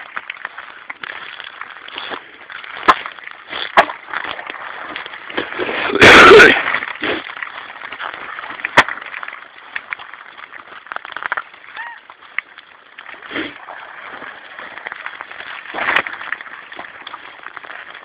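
Scattered sharp knocks and clicks of handling over a steady hiss, with one much louder, clipped burst lasting about half a second around six seconds in.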